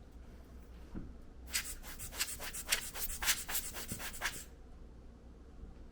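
Quick rubbing strokes on a 62 mm camera lens filter, about five a second for roughly three seconds, starting a second and a half in.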